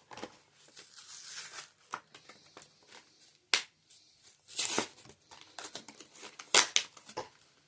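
Toy car blister packaging being handled and torn open: plastic crinkling and card tearing, with several sharp snaps and a louder rustle about halfway through.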